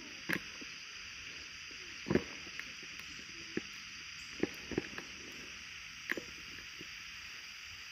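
Steady high-pitched drone of insects, with a few scattered sharp knocks and clicks, the loudest about two seconds in and another pair a little before the five-second mark.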